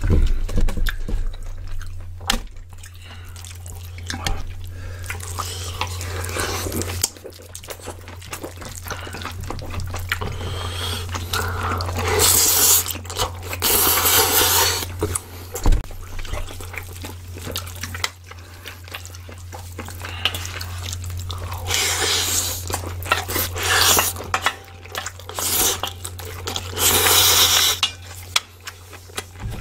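Close-miked eating sounds: two people chewing mouthfuls of bibimbap and kimchi stew, with wooden spoons clicking and scraping on a glass bowl and a pan. The noise comes in irregular loud bursts between quieter stretches.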